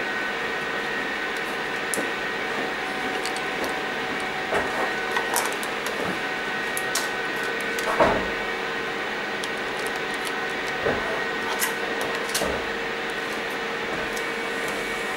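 Steady hum of kitchen ventilation with a few scattered light knocks and clicks, the loudest about eight seconds in.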